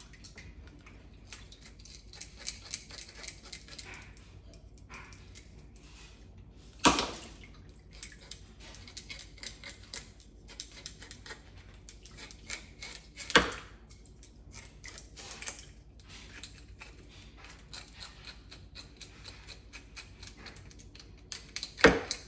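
Scales being scraped off whole parrotfish and snapper: quick, short scratchy strokes repeated over and over, broken by three sharp knocks.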